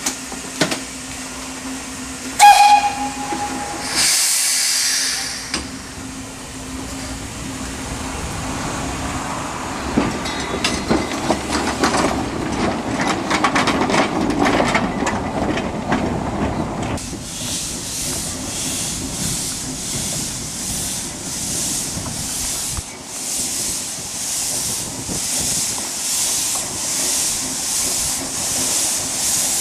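Wee Georgie Wood, a small narrow-gauge steam locomotive, sounds a short whistle blast and lets off a burst of steam hiss. It then rumbles and clanks as it starts moving, and its exhaust settles into steady chuffs about once a second as it pulls away.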